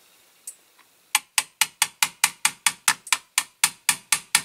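Small hammer tapping a metal pin into a diecast toy, quick even taps about four or five a second, starting about a second in.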